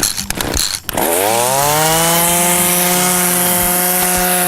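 Chainsaw engine revved up about a second in, its pitch climbing quickly and then holding steady at full throttle.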